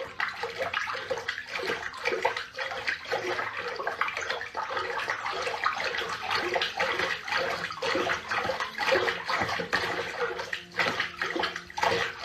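Water splashing and sloshing in a bathtub as a cat paws and slaps at the surface, a dense run of small, irregular splashes.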